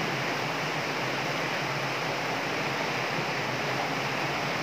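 Water rushing and foaming over a shallow concrete step in a culvert channel, a steady, even noise.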